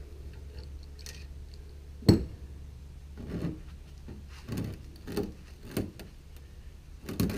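Scattered knocks and clinks as a metal wire rope socket is worked down by hand over the spread wires of a cable end. The sharpest knock comes about two seconds in and a quick cluster near the end, over a steady low hum.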